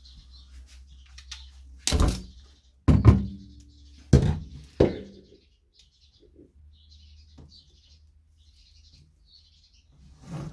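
Four loud thuds in the first five seconds, the second ringing briefly, with faint high bird chirps scattered throughout.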